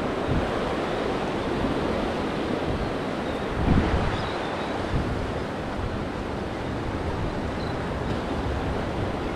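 Rough inlet water rushing and breaking against a rock jetty, with wind buffeting the microphone; a stronger gust hits about four seconds in.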